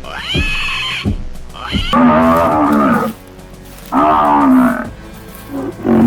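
Simulated dinosaur calls over music: a couple of high, whinny-like calls at the start, then three long, low, loud bellowing roars about two seconds apart.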